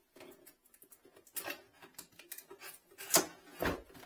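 Cardboard box and packaging being handled and opened: scattered rustles and clicks, with two louder knocks a little over three seconds in.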